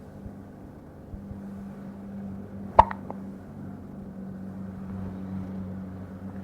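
A two-week-old baby's hiccup: one short, sharp hic about three seconds in, with a softer catch right after, over a low steady hum.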